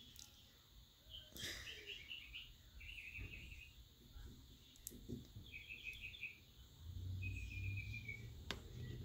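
Faint bird chirping in four short, rapid trills, with two sharp clicks, one about a second and a half in and one near the end.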